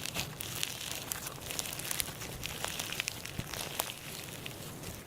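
Crinkling, crackling handling noise, with many small sharp clicks scattered irregularly over a steady hiss.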